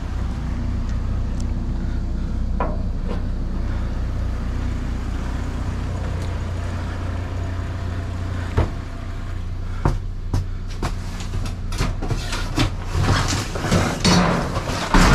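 A vehicle engine idling steadily. A few sharp knocks come over it, then busier clattering and rattling in the last few seconds as objects in a dumpster are poked and dragged with a picking stick.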